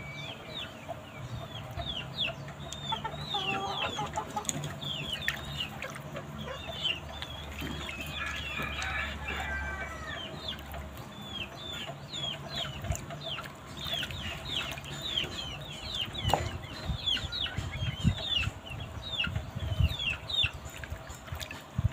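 Chickens clucking and giving many short, high, falling chirps, mixed with water sloshing and splashing as a rooster is dipped and rubbed in a basin of water; the splashing knocks are loudest in the last few seconds.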